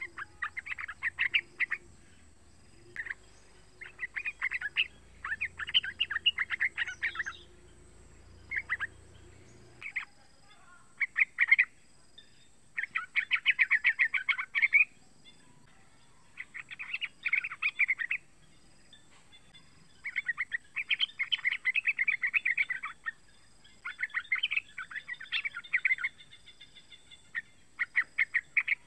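Young yellow-vented bulbul (trucukan) singing: phrases of rapid chattering notes, each a second or two long, repeated again and again with short pauses between them.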